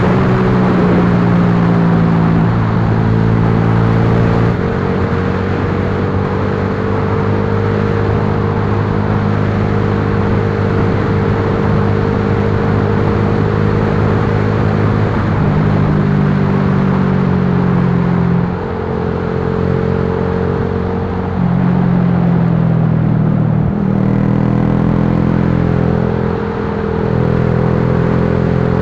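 Yamaha Lagenda 115fi's single-cylinder four-stroke engine running under way, its pitch stepping up and down several times with brief dips as the rider changes gear and throttle, over steady wind and road noise.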